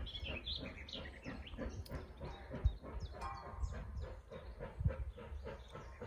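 Wild birds singing and chirping, with a brief trill about three seconds in, over a steady low rumble with occasional low thumps.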